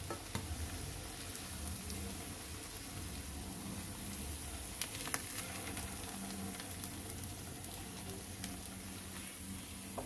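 Hot oil sizzling softly and steadily in a frying pan as aloo paneer tikkis (potato and paneer patties) shallow-fry, with a few small pops about halfway through.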